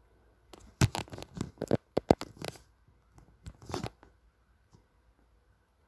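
A run of irregular rustling and scraping noises, two groups of quick strokes in about three and a half seconds.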